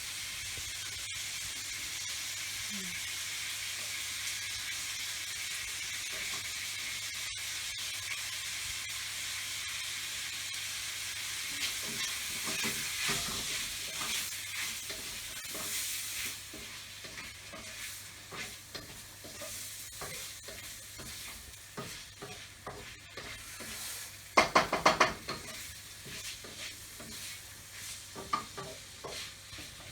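Fried rice sizzling in a hot pan as it is stirred and scraped with a utensil. The sizzle is strong for about the first half, then dies down, and a short burst of loud scraping knocks against the pan comes late on.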